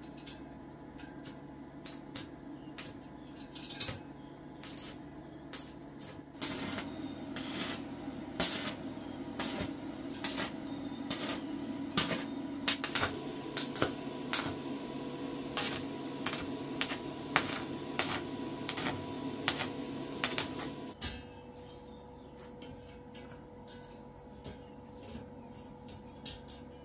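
Electric arc welding on iron bars: a sizzling crackle with frequent sharp pops, starting about six seconds in and stopping about twenty-one seconds in. A faint steady hum is left after it stops.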